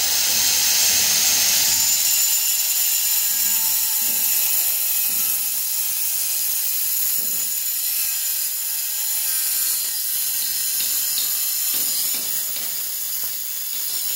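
Handheld angle grinder cutting through a red floor tile: a steady high whine over a continuous hiss as the disc bites into the tile.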